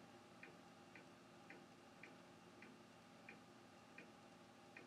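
Near silence: room tone with faint, regular ticking, about two ticks a second.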